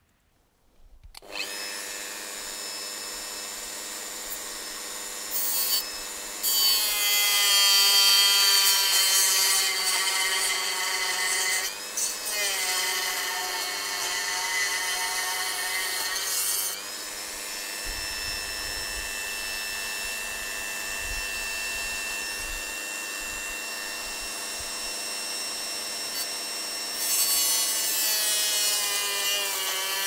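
Handheld rotary tool with a small cut-off disc running at high speed, cutting into a white plastic crimp-connector housing: a steady whine that starts about a second in. It gets louder while the disc bites, and the pitch sags briefly in the middle as the disc loads up.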